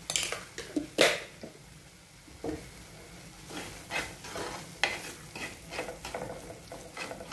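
A steel spoon stirring and scraping thick masala in a clay pot while the masala sizzles in ghee. There are two sharp knocks of the spoon on the pot in the first second. From the middle on come quick, repeated scraping strokes.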